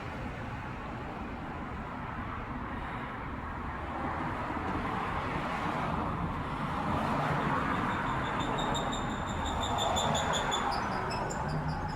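Street traffic passing, swelling and fading. From about two-thirds of the way in, a rapid, even run of high chirps joins it.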